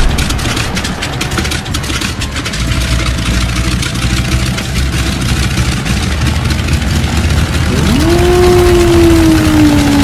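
Propeller aircraft engines running steadily as a low rumble during takeoff. About eight seconds in, a loud droning tone comes in, jumps up in pitch and then slowly falls.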